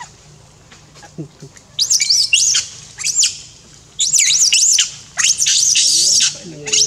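Young long-tailed macaque screaming: loud, high, wavering squeals in several bouts, starting about two seconds in. A lower-pitched voice comes in near the end.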